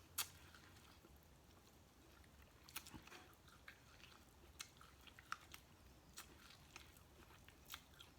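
A person chewing and biting food close to the microphone: faint, with a dozen or so short, irregular mouth clicks and smacks.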